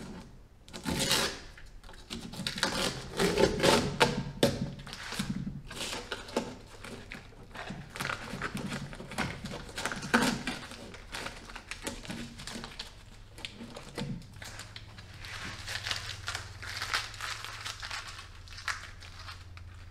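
Two halves of a homemade fiberglass mold being worked apart by hand at their flanges: irregular scraping, rubbing and knocking of the stiff fiberglass as it is pulled.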